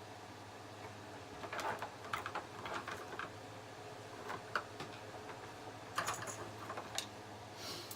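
Light, irregular clicks, taps and short rattles of small gun-cleaning tools and parts being handled and rummaged through, over a faint steady low hum.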